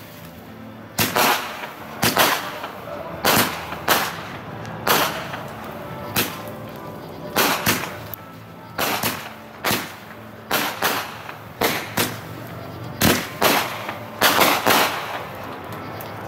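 Consumer firework cake with 1-inch tubes firing shot after shot: a string of sharp bangs about one a second, some coming in quick pairs.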